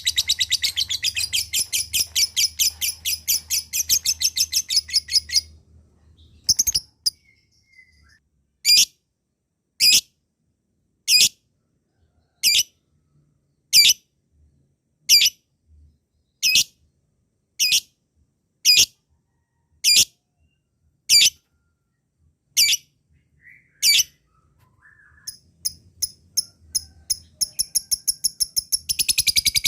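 Lovebird ngekek: a fast, high chattering trill of rapid chirps, breaking off after about five seconds into single sharp chirps roughly one every second and a quarter, then picking up again into the rapid chatter near the end.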